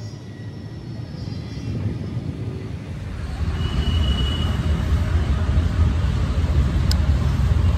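Low, uneven outdoor rumble that grows louder about three seconds in, with a brief high tone a little later.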